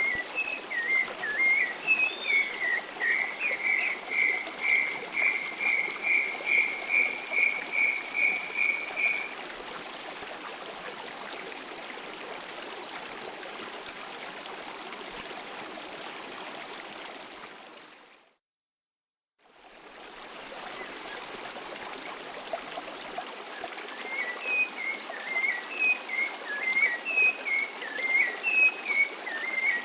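Atlantic Forest bird song over a steady rushing background. A bird gives a few varied chirps, then a long, even series of about sixteen identical notes at roughly two a second. The sound fades out briefly midway and fades back in, and more chirping follows near the end.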